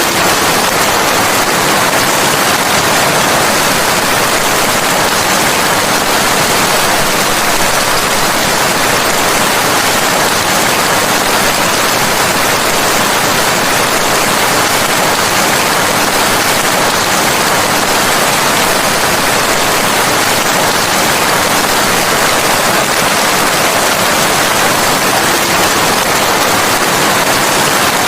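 Steady rain, a dense even hiss with no single drops, thunder or other events standing out.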